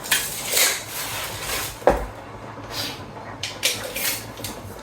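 Scattered clatter and knocks of plywood pieces and tools being handled, with one sharper knock about two seconds in.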